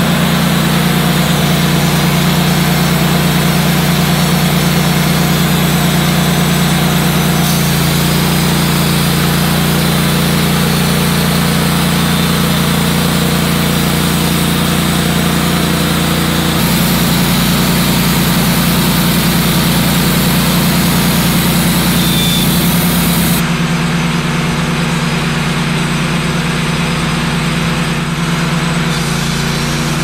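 Wood-Mizer LT15 band sawmill at work: its gasoline engine running steadily under load while the band blade cuts through a log, with the hiss of sawdust thrown from the cut. The sound changes abruptly a few times.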